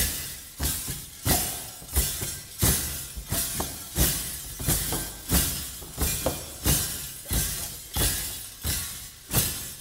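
Metal rattles (sonnailles) of geerewol dancers shaken in a steady beat. A sharp jangling stroke comes about every two-thirds of a second, each ringing out briefly.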